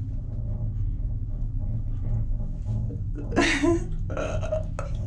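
Steady low rumble inside a moving gondola cabin, with a short burst of voice about three and a half seconds in.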